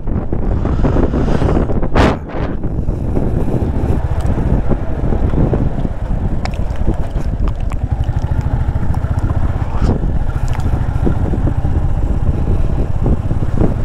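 Wind buffeting the microphone of a moving motorcycle, with the engine's rumble running underneath. A brief louder rush of wind about two seconds in.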